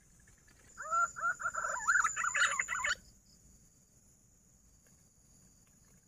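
Whistled green pigeon (punai) call: a quick run of warbling, up-and-down whistled notes. It starts about a second in, lasts about two seconds and stops abruptly.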